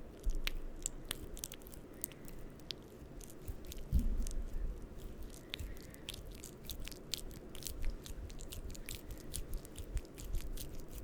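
Hand lotion squelching as lotion-covered hands rub together close to the microphone: dense, irregular sticky clicks, with a few low thumps, the loudest about four seconds in.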